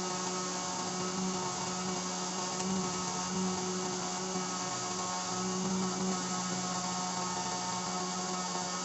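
A 775 DC motor driving a flexible-shaft rotary tool, whirring steadily at a constant high speed with a strong hum and many overtones.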